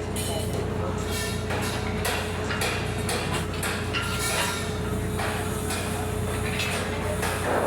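A machine engine running steadily with a constant hum, under frequent short clanks and knocks of construction work.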